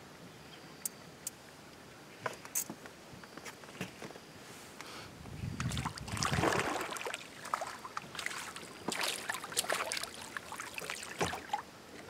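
A hooked crappie splashing at the water's surface as it is reeled in to the boat, with splashy bursts from about five seconds in until near the end. A few sharp clicks come before the splashing.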